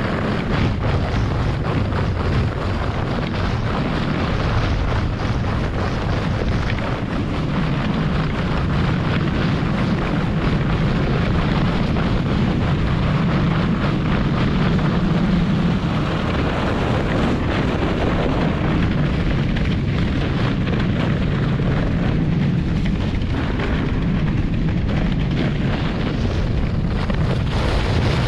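German Luge 115 sled running down a snowy toboggan track: a steady, loud rumble and scrape of the runners over the packed snow, with wind buffeting the camera microphone.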